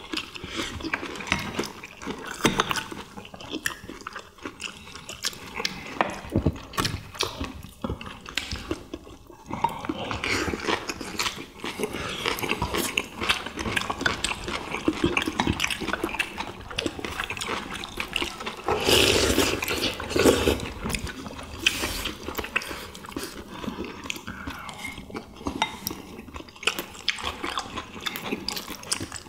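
Close-up eating noises from several people: wet chewing and slurping of soup from spoons, full of small mouth clicks, louder for a couple of seconds about two-thirds of the way through.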